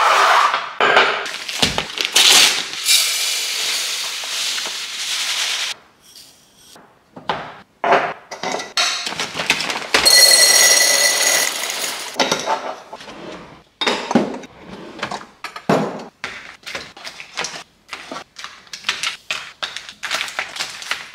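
Dry food being poured: a long rattling pour into a bowl for the first few seconds, then a shorter pour into a glass jar, which rings as it fills, about ten seconds in. After that come a run of small clicks and knocks as plastic pouches and packets are handled and set into a plastic basket.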